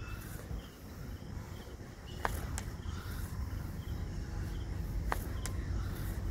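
Outdoor ambience of faint, repeated chirping over a low rumble that grows louder about two seconds in. Two pairs of sharp taps, about three seconds apart, come with each bodyweight rep as rubber slippers slap down on the board.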